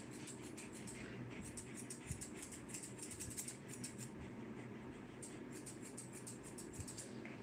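Grooming scissors snipping at a dog's face and ear hair: quick runs of light metal snips, three runs with short pauses between.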